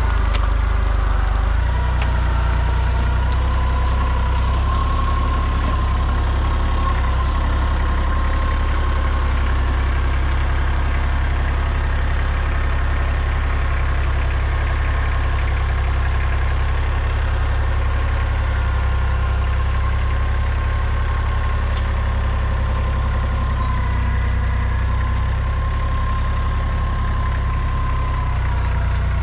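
Kubota compact tractor's diesel engine running steadily under work as its front loader digs and clears brush, with a steady thin whine over the low engine hum.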